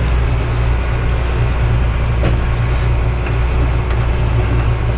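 Tractor engine running steadily under load while pulling loaded grain wagons, with a deep, even low hum.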